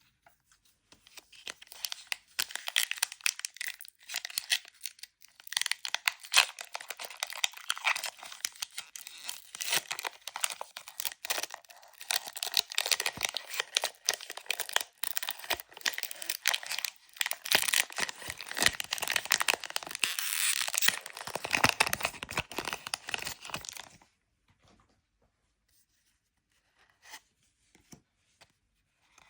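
Crinkling and tearing of plastic or foil packaging while a Pokémon card box is unboxed: a dense run of crackles that stops about five seconds before the end, leaving only a few faint clicks.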